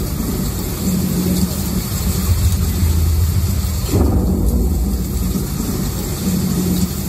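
Thunderstorm sound effect over a show's sound system: low rolling rumble with a hiss of rain, and a fresh thunderclap about four seconds in.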